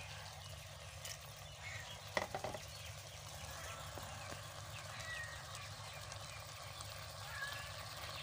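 A pot of chopped squash in masala sizzling faintly as it cooks on low heat. A few light knocks come about two seconds in, and faint short high chirps come a few times.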